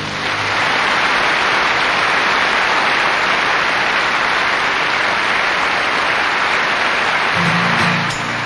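Audience applauding with steady, even clapping. About seven seconds in, acoustic guitars and a double bass start the next song under the applause.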